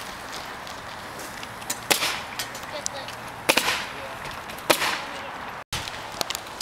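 Pneumatic roofing nailers firing on a shingle roof. The sharp snaps come at irregular intervals, three of them louder than the fainter clicks in between. The sound drops out briefly near the end.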